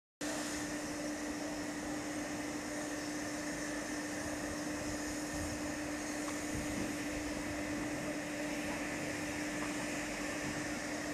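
Steady mechanical hum with one constant mid-pitched tone and a hiss over it, unchanging throughout.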